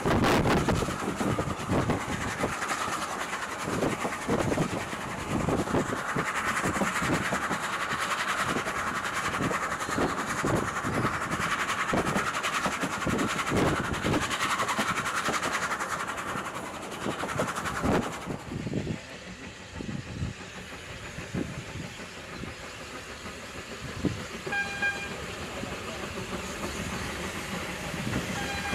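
Narrow-gauge steam train heard from a carriage on the move: wheels clattering over rail joints under steady running noise, with the locomotive working ahead. After about eighteen seconds it turns quieter, and a locomotive whistle gives short toots about two-thirds of the way through and again near the end.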